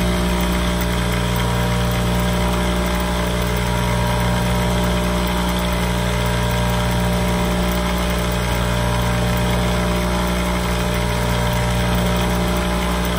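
Electric bench buffer running with a steady hum as its buffing wheel polishes a polymer pistol frame.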